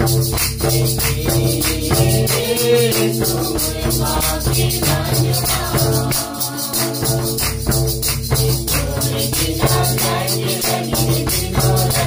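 A group of men and women singing a devotional hymn together, with hand claps, a cord-laced barrel drum and a hand-held rattle keeping a steady, quick beat.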